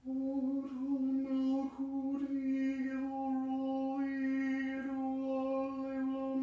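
A man's voice intoning a long chant on one steady pitch, the vowel colour shifting as it goes, with brief breaks about two and five seconds in.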